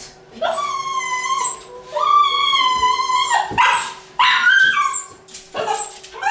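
A dog whining in a run of about five long, high-pitched cries, each up to a second or so long.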